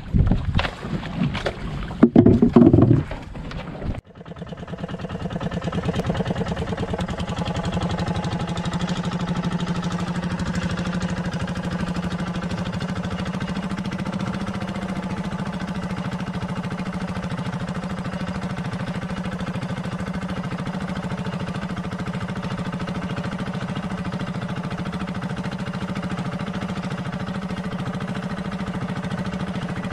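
Knocks and wind on the microphone for the first few seconds. Then a motorised boat engine running steadily at speed, a constant low drone that builds over a couple of seconds and then holds level.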